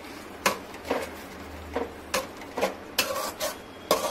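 A spatula scraping and knocking against the pan while stirring onion, tomato and ginger-garlic-mint paste frying in oil, in irregular strokes about every half second over a faint sizzle.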